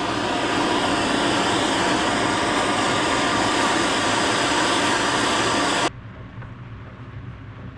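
Handheld gas torch burning steadily with a blue flame, heating a flat metal strip clamped in a vise; the flame noise cuts off suddenly about six seconds in.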